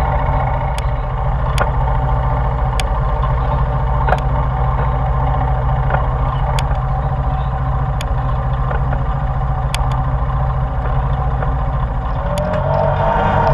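ATV engine idling steadily close by, with a few faint sharp ticks; about a second before the end the engine note rises as it revs.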